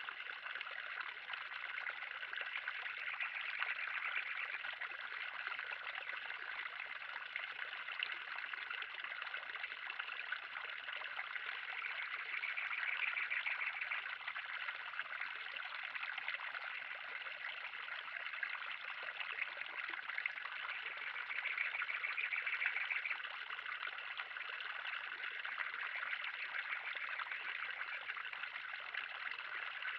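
Steady trickling and splashing of running water in a 3000-gallon pond, swelling slightly now and then.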